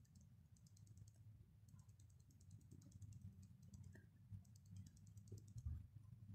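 Faint clicks and low taps of a kitchen knife slicing a cucumber on a bamboo cutting board.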